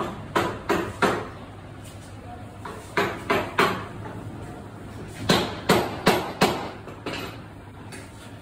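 Sharp knocks struck in quick runs of three or four, about three a second, with pauses of a second or two between runs; the last is a single knock.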